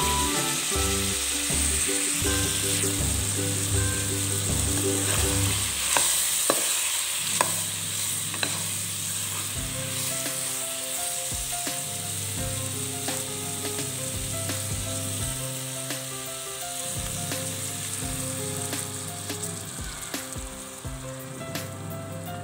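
Chicken pieces with ginger, garlic and green chili sizzling as they fry in oil in a pan, a steady hiss, with a few knocks of the stirring utensil against the pan about a third of the way in. Background music plays underneath.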